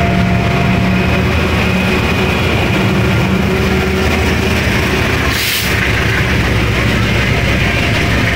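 Passenger train passing close by at speed: the diesel-electric locomotive's engine gives a steady low drone, with the tail of a horn note in the first second. The power car and coaches follow, with a brief hiss about five and a half seconds in.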